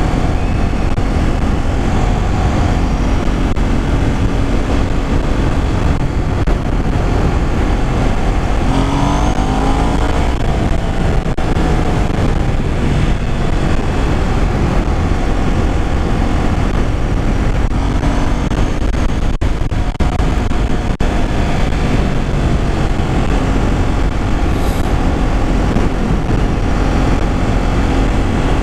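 Ducati sportbike riding at road speed: steady wind rush on the camera microphone over the running engine, with the engine note rising briefly twice, about nine and eighteen seconds in.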